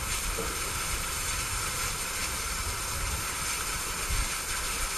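Bulleid Pacific steam locomotive No. 34067 standing with steam hissing steadily, over a low rumble.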